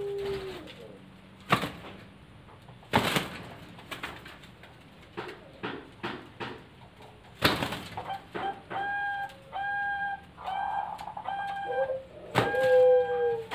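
Derkuku doves cooing: a long coo trailing off at the start, then from about eight seconds in a run of short, repeated coo notes with a lower drawn-out coo near the end. A few sharp knocks sound in between.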